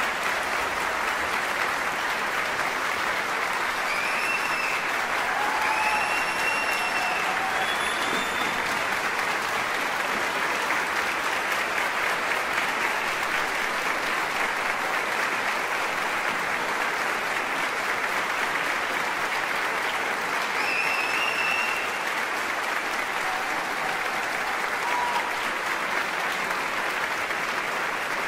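Concert-hall audience applauding steadily, with a few brief cheers rising above the clapping between about four and eight seconds in and again about twenty-one seconds in.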